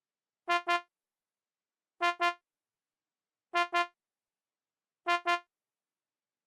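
Soloed horn sample in a beat, playing a pair of short stabs on the same pitch. The pair repeats about every second and a half.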